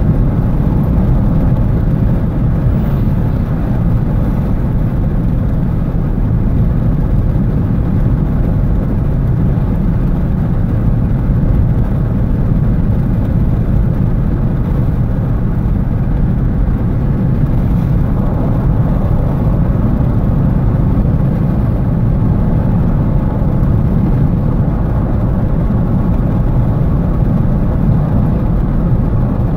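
Steady low rumble of road and engine noise inside a car's cabin while driving at an even speed, picked up by a dash-mounted phone's microphone.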